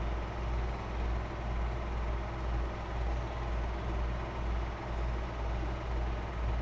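Super 8 film projector running: a steady low mechanical hum that throbs about twice a second, under an even hiss.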